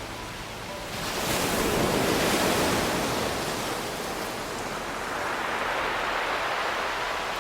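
Ocean waves breaking on a pebble beach. A wave swells up about a second in and washes back, and a second, smaller surge rises later.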